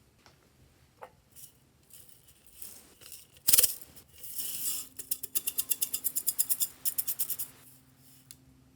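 A sharp knock, then something shaken in a small container, rattling in quick even strokes about seven times a second for a couple of seconds.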